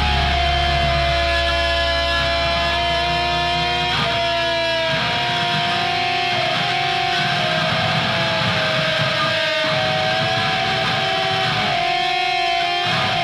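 A metalcore song in a slower passage: electric guitars hold long ringing notes that bend slightly in pitch, over a deep low note that fades away over the first few seconds.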